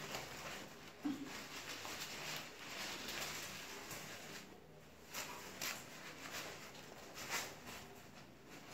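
Soft rustling and scratching of a bonnet hair-dryer hood's shiny fabric as it is pulled and adjusted over a head of flexi rods, in several short rustles.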